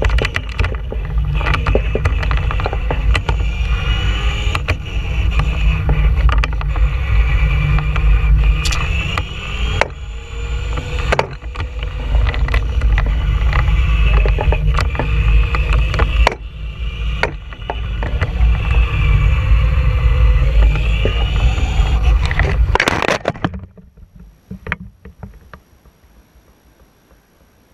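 Onboard audio of a Traxxas Stampede 2WD RC monster truck at speed on asphalt: the electric motor's whine rises and falls with the throttle over a heavy rumble of tyres and wind on the truck-mounted camera. About 23 s in, a sharp clatter as the truck crashes and rolls onto its side; after that only faint noise and a few small clicks.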